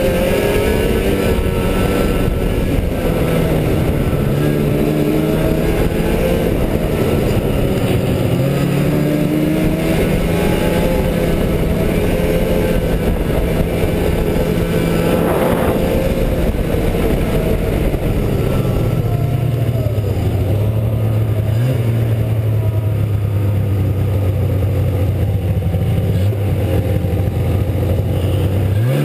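Snowmobile engine running under way, heard from the rider's seat, its pitch following the throttle: a brief dip about a third of the way in, a lower steady note from about two-thirds through, then a sharp rise as it accelerates at the very end.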